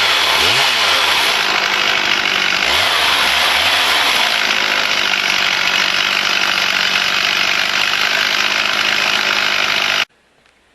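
Chainsaw ripping lengthwise through an oak log on a milling bench, its engine pitch dropping and wavering as the chain bites into the wood, then running steady under load. The sound cuts off suddenly near the end.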